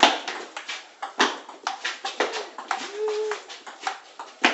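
Table-tennis rally: a celluloid ball clicking sharply against rubber paddles and a plank-top wooden table, the hits coming irregularly about every half second and ringing in a hard-walled walkway. A brief low tone sounds about three seconds in.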